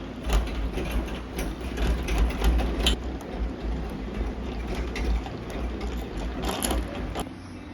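Honey extractor spinning loaded honey frames: a steady low mechanical rumble with rattles and clicks, stopping about seven seconds in.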